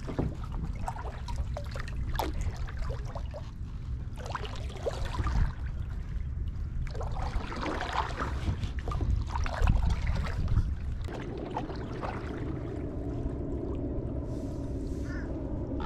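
Kayak paddle strokes splashing and dripping in the water, irregular and close, over a low rumble. A steady low hum comes in about two-thirds of the way through and the splashing dies down.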